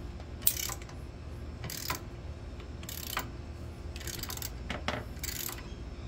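Hand ratchet with a size-15 socket turning out a brake caliper bolt: a short burst of pawl clicks on each return swing, about five strokes a little over a second apart.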